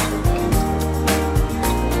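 Background music with a steady beat and sustained instrumental tones.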